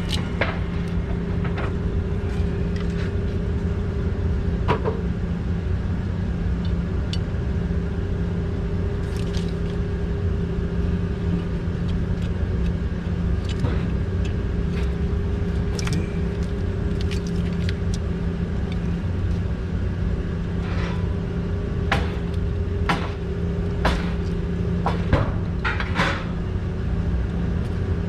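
Steady low machine hum holding one even pitch throughout, with scattered sharp clicks and clinks of small parts and tools being handled, several close together in the last third.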